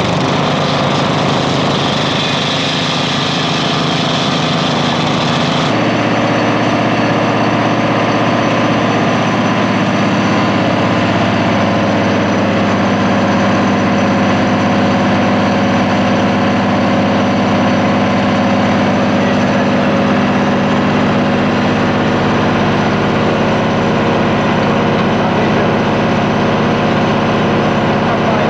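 Engines running steadily from a gas-powered core drill and a truck-mounted vacuum excavator during coring. About six seconds in the sound changes abruptly: a higher hiss drops away and a steadier, lower hum takes over.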